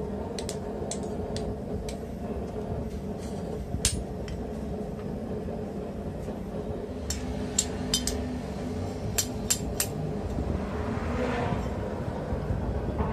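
Light metallic clinks and taps as steel tongs and tools are handled on a vise-mounted steel die block: scattered single knocks, not a run of hammer blows, over a steady background rumble.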